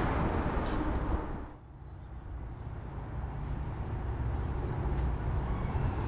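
Steady low outdoor rumble with no speech, dipping suddenly about a second and a half in and then carrying on.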